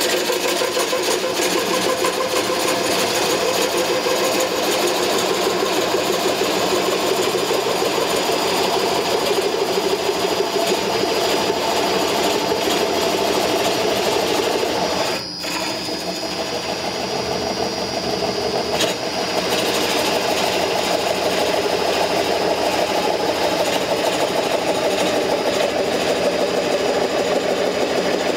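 Bowl coring machine cutting a core out of a spinning wood blank: the curved coring knife shears wood with a steady, loud cutting noise and a fast rattling chatter, over the hum of the lathe motor. The sound dips briefly about halfway through, then carries on.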